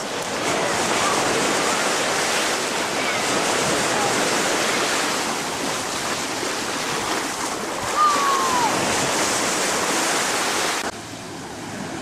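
Sea surf washing onto a busy beach, a steady hiss of waves that drops suddenly in level near the end.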